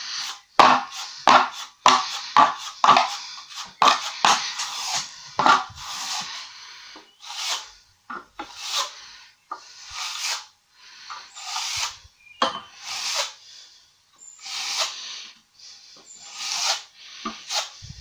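Steel plastering trowel scraped repeatedly across a fresh Multi-Finish skim coat to smooth it flat. The strokes come quickly for the first few seconds, then slow to about one a second.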